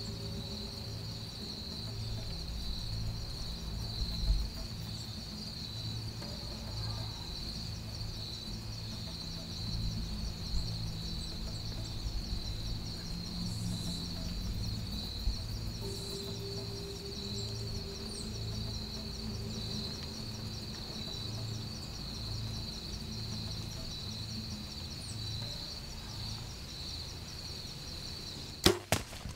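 A steady, high, continuous insect chorus, with a low pulsing beat of quiet background music underneath. A sharp click comes just before the end.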